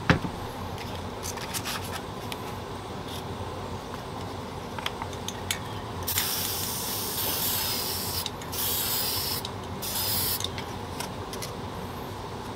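Aerosol spray paint can hissing in three bursts: a long one of about two seconds halfway through, then two short ones. Light clicks and handling knocks come before them.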